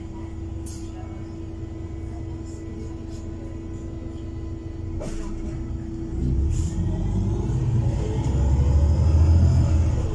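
Inside a Heuliez GX 337 CNG city bus under way: steady engine and drivetrain rumble with a constant whine, then from about six seconds in the engine note rises and grows louder as the bus accelerates, peaking just before the end and then easing off. A few light rattles and clicks of the cabin are heard.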